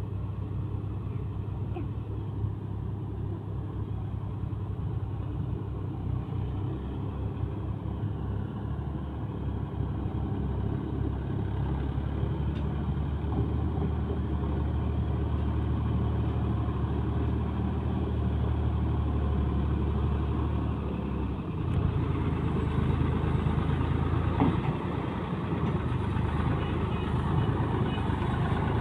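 Tractor diesel engine pulling a trolley heavily loaded with sugarcane, a steady low engine hum that grows louder as the tractor draws near. Its engine note shifts about three quarters of the way through.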